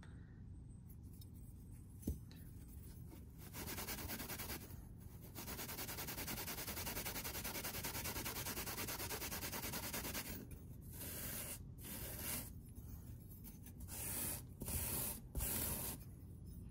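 Small aluminium grill scrubbed back and forth on a Scotch-Brite abrasive pad, a scratchy scrubbing hiss, to clean the dull raw aluminium. The scrubbing starts about three and a half seconds in as fast continuous strokes, then after about ten seconds breaks into a handful of separate strokes.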